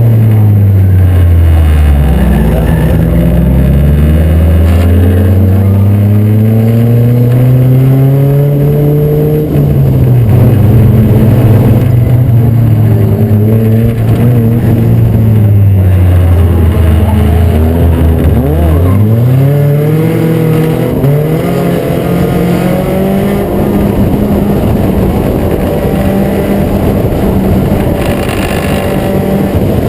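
Acura Integra four-cylinder race car engine running hard around a short oval. The revs fall at the start, climb for several seconds, hold, drop sharply about two-thirds of the way through, then climb again: lifting for the turns and pulling down the straights.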